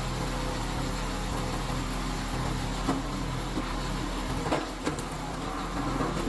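A machine's engine running steadily at one pitch, with a few sharp knocks: one about three seconds in and two more a second and a half later.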